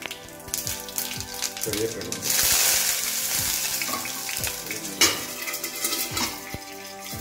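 Hot oil in a kadai sizzling, bursting up strongly about two seconds in and then settling to a lighter sizzle. A steel lid clanks onto the pan about five seconds in.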